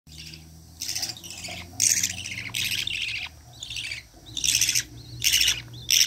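Budgerigars calling: a run of short, harsh, raspy chirps, about one a second.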